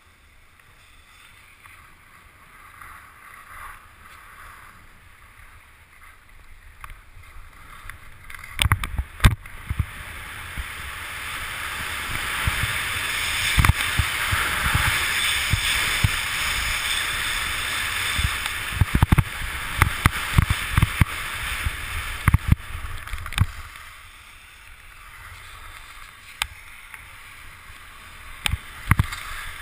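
Skis scraping and hissing over packed, groomed snow. The hiss builds about a third of the way in, stays strong through the middle and eases off again, with scattered knocks and thumps as the skis ride over bumps.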